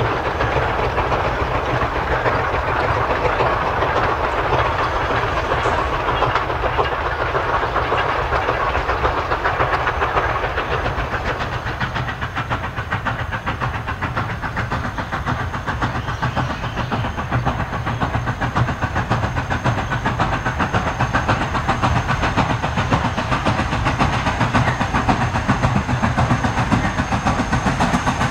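Narrow-gauge steam train led by a 1916-built 2-8-2 Mikado locomotive, running steadily, with steam hiss and the cars rolling over the rails. The hiss eases about halfway through.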